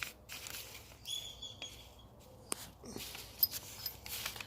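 Faint clicks and scrapes of metal brake hardware being handled while it is greased, with a brief high chirp about a second in.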